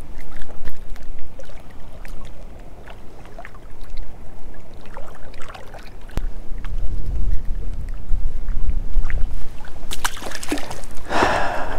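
Wind buffeting the microphone in uneven gusts, with small clicks and handling noises. A brief rush of noise comes near the end.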